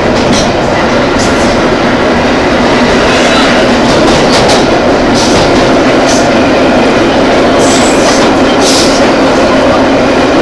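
Vintage IRT Lo-V subway car running on the rails, heard from inside the car: a loud, steady running noise of wheels and motors. Short high-pitched clicks and scrapes are scattered through it.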